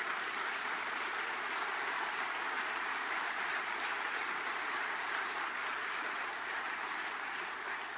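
Congregation applauding steadily after a climactic line of the sermon.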